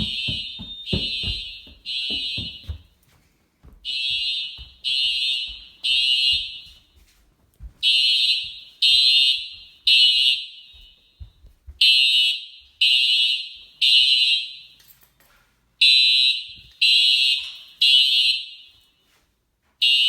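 Fire alarm horns sounding the temporal-three evacuation pattern: three high-pitched beeps, then a pause, repeating about every four seconds. It is a test alarm tripped by the basement heat detector.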